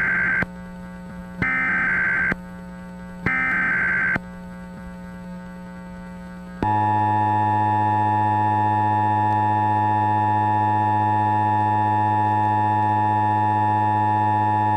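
Emergency Alert System test: three digital SAME header bursts of about a second each, then after a short pause the steady two-tone EAS attention signal starts about six and a half seconds in and holds, over a low hum between the bursts.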